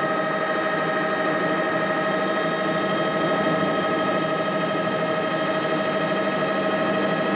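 Helicopter in flight heard from inside the cabin: a steady drone with a constant high whine.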